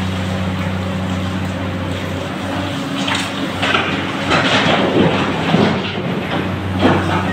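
Steady drone of diesel engines from a hydraulic excavator and dump truck. From about three seconds in come loud irregular clattering and rumbling, most likely rock muck from the excavator bucket tumbling into the dump truck's steel bed.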